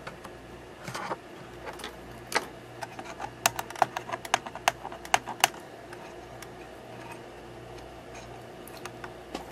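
Light clicks and taps from handling the actuator's circuit board and plastic housing, a quick run of them in the middle, over a steady low hum.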